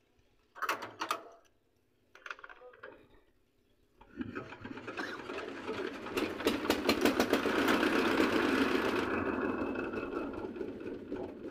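Small diesel engine of a three-wheeled cargo vehicle being hand-cranked. A couple of short clanks come first, then about four seconds in a fast, rapidly pulsing mechanical clatter builds up, peaks and gradually winds down. The engine dies because it is being shut off, so it will not keep running after each start.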